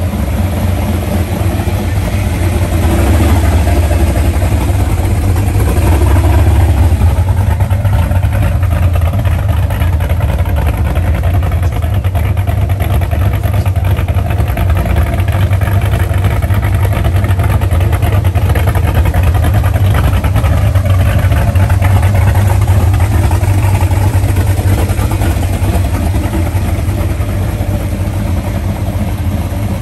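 Early second-generation Chevrolet Camaro's engine idling loudly with a low, steady rumble that swells a little about three and six seconds in.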